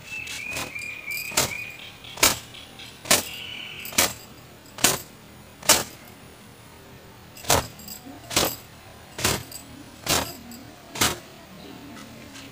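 A towel being whipped against long wet hair, making sharp snaps a little under a second apart, about eleven in all, with a short pause around the middle.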